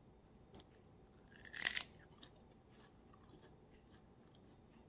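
One crisp bite into a thin, papery sheet of crispy seaweed snack about a second and a half in, followed by a few faint crunches of chewing.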